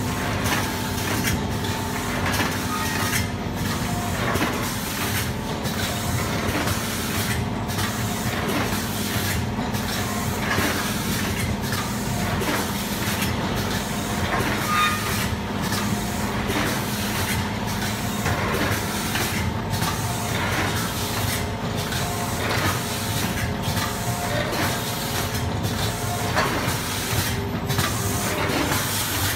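Automatic coffee bag packing machine running: a steady motor hum with repeated mechanical clicking and hissing air, recurring in a regular cycle.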